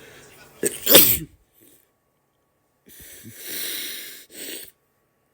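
A boy sneezing once about a second in: a short catch of breath, then the sneeze itself with its pitch falling. A couple of seconds later come a longer noisy breath and a shorter one after it.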